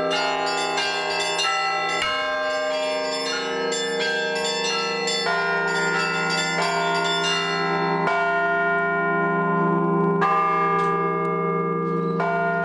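Russian church bells rung together by hand: quick strikes of the small bells over the ringing of the heavier bells. After about eight seconds the small bells thin out, leaving single strikes a couple of seconds apart over the ringing of the larger bells.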